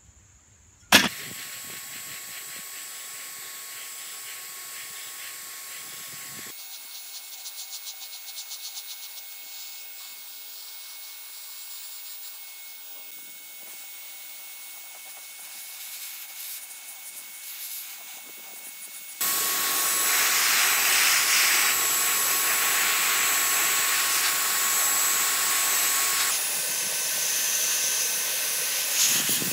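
Paint spray gun spraying grey filler primer: a steady hiss with a thin whine on top. It starts abruptly about a second in, changes at several cuts, and grows much louder in the last third.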